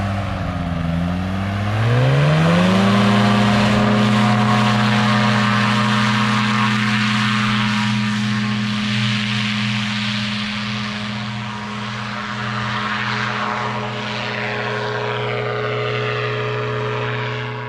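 Powered parachute's engine and propeller throttling up from idle over about two seconds, then holding steady at full power through the takeoff run and climb, slowly getting fainter toward the end.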